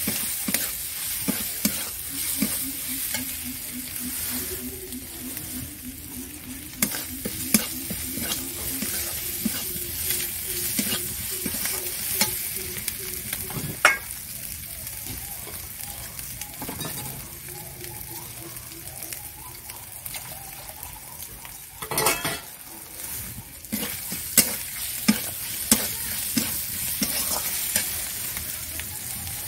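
Onion and spice masala sizzling in oil in a metal kadai while a metal spatula stirs and scrapes it, with sharp clinks of the spatula against the pan, the loudest about halfway through and several close together near the end.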